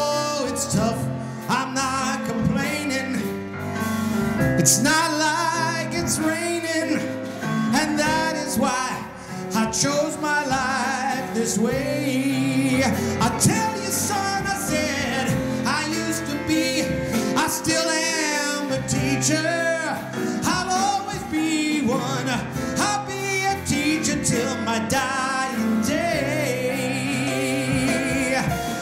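A man singing a cabaret song with live band accompaniment.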